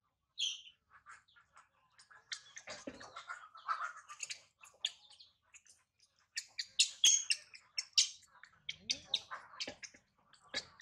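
Water splashing and dripping in a steel basin as a newborn macaque is rinsed, with many short high-pitched chirps and squeaks throughout. The splashes are busiest past the middle.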